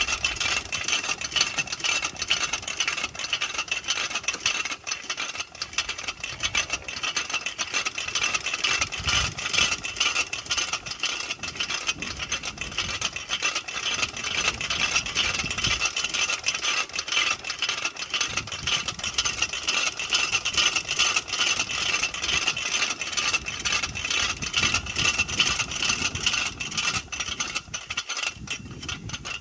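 Winch at an oil well running, its steel cable scraping and rattling on the drum and pulleys as it feeds down the well: a fast, continuous metallic clatter.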